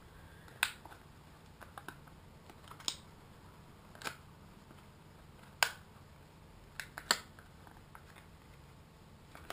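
Scattered sharp clicks and small taps of plastic being handled as the canopy is fitted onto a Blade mCP X micro RC helicopter, about five distinct clicks spaced a second or more apart, the loudest two in the second half.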